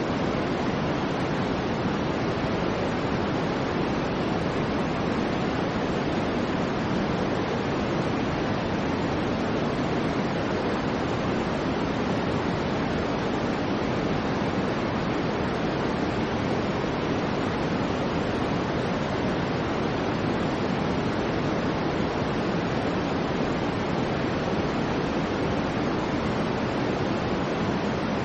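Steady soft white noise, an even hiss weighted toward the low and middle range, without change or pattern.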